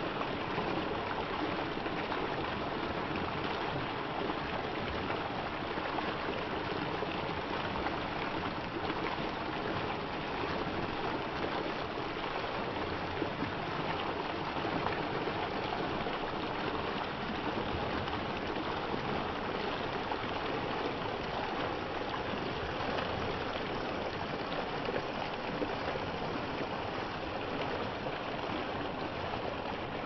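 Water fountain splashing and pouring steadily, an even rushing of falling water.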